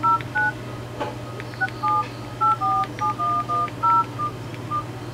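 Philips E105 feature phone's keypad playing DTMF dialing tones as a number is keyed in: about a dozen short two-note beeps at an uneven pace, over a low steady hum.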